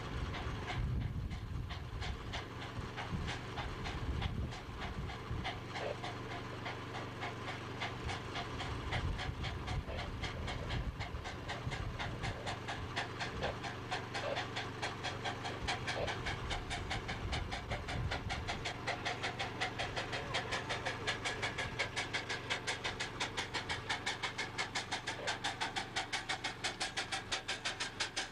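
Small live-steam locomotive on a ride-on miniature railway chuffing steadily as it hauls a passenger train, a fast even run of exhaust beats that grows louder and more regular about two-thirds of the way in. A low rumble runs under it and stops about two-thirds of the way in.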